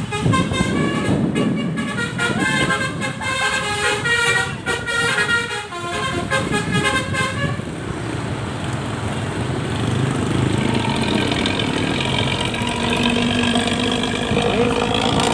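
Basuri musical horn playing a tune of shifting notes for about seven seconds, then giving way to the engine running through a loud open exhaust.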